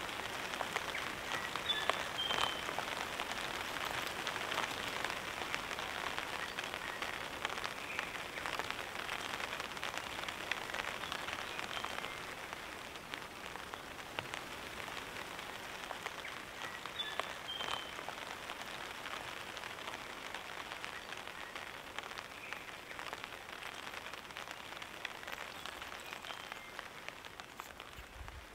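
Light rain pattering steadily on a tarp: a dense hiss of small drop ticks that eases a little about halfway through.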